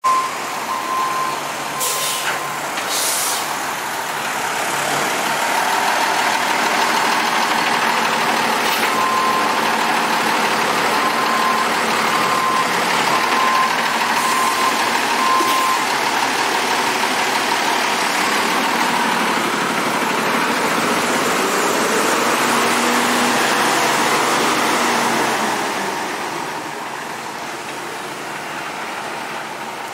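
A large motor vehicle running with a loud, steady rushing noise that swells a few seconds in and eases near the end. From about 9 to 15 seconds in, a run of evenly spaced, high beeps sounds over it.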